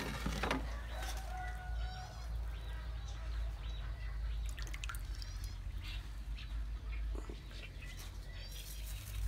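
Short, wavy, high chirps from small birds, heard about three times, over a steady low rumble and scattered small clicks.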